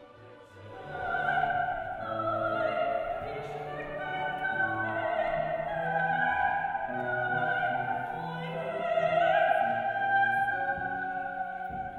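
A classical vocal ensemble singing, with a soprano holding long, sustained notes above lower voices. The music swells in during the first second.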